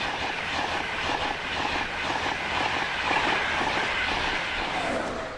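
A train passing at speed on a main line: a steady rush of wheel and rail noise with a regular clattering beat, which cuts off abruptly at the end.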